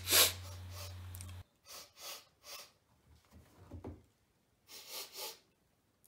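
A man sniffing in short, quick sniffs, several in a row, with his head inside a front-loading washing machine drum, testing the freshly cleaned drum for any smell.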